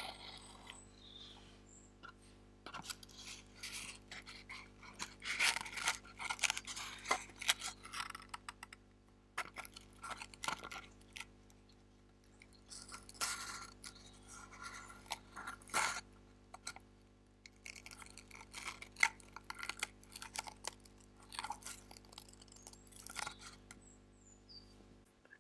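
Fingers scratching, tapping and handling a small kraft cardboard box held right against a clip-on lapel microphone, making irregular crackly scrapes and clicks over a steady low electrical hum.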